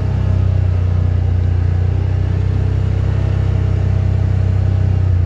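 Side-by-side utility vehicle's engine running steadily as it drives along a dirt trail, heard from the seat as a deep, even drone.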